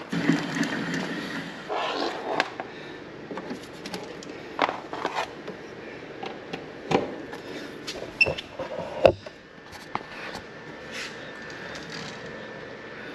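A wheeled portable power station rolling across a wood floor, followed by a series of clicks and knocks as its charging cord is plugged into the wall outlet and the unit; the loudest knock comes about nine seconds in.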